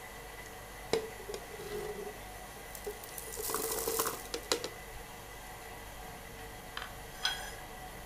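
Shallots, garlic and coriander seeds tipped into a plastic blender jug. A knock about a second in, then a rush of hard seeds rattling into the jug around the middle with a few sharp clacks, and a small click near the end.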